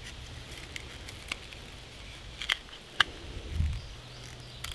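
Scissors snipping lengthwise along a piece of old rubber garden hose to slit it open: a few sharp, irregular clicks and snips, with a brief low thud about three and a half seconds in.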